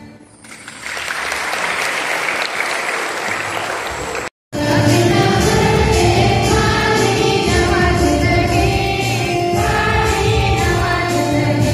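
Clapping for about three seconds, then after a short break a hymn with a choir singing over instrumental accompaniment.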